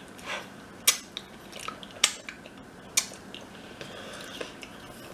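Eating at the table: three sharp cracks or clicks about a second apart, with quieter chewing and handling sounds between.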